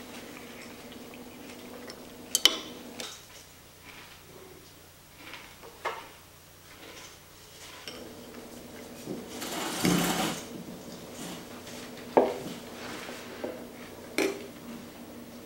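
A metal spoon clinking against a ceramic bowl: four sharp clinks with a short ring, about two, six, twelve and fourteen seconds in, over a faint steady hum. About ten seconds in, a louder rustling scrape lasts about a second.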